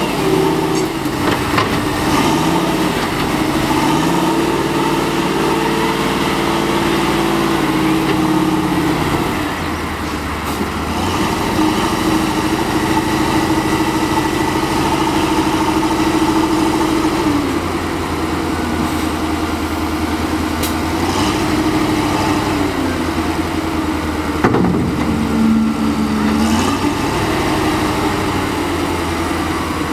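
Faun F2000C wheel loader's diesel engine working, its pitch rising and falling as it digs sand, lifts the bucket and tips the load into a dump truck. A single sharp knock about three quarters of the way through.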